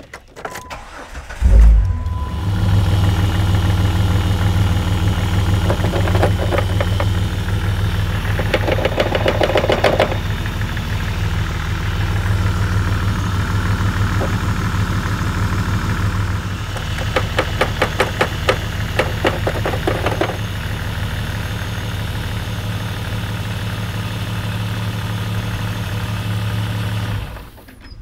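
A 2003 Jeep Grand Cherokee engine cranks briefly, starts and runs at a steady idle, with two stretches of rapid clicking. Near the end it cuts out abruptly: the engine stalls as the engine-computer connector is flexed. The technician takes this for a broken pin joint inside the engine computer.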